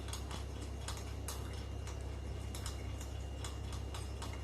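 Metal spoon stirring honey, lime juice and salt in a small container, knocking against its sides in an even tick about three times a second.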